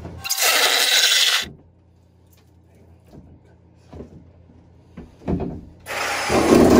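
A power cutting tool cutting into the fiberglass shower wall in two short bursts, about a second long near the start and again near the end, with a few knocks and clicks in between.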